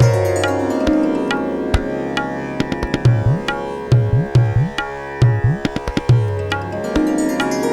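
Background Indian-style music: tabla strokes, the low bass-drum strokes bending upward in pitch, over sustained melodic tones.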